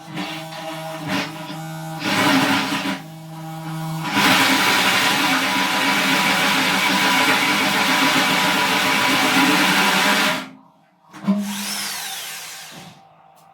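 Electric drill spinning a blunt wood-cutting hole saw against sheet steel, grinding rather than cutting. Short runs at first, then about six seconds of steady grinding that stops abruptly, and a final brief burst whose motor whine falls as it winds down.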